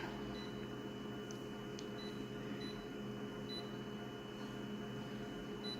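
Steady electrical hum of equipment in a small room, with a few faint, short high-pitched blips scattered through it.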